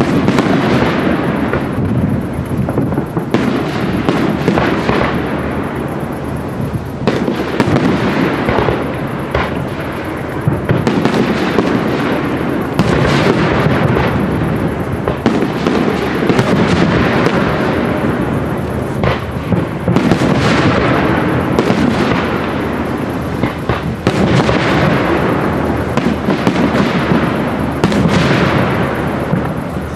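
Aerial firework shells bursting in quick succession: many sharp bangs over a constant wash of noise, loud throughout.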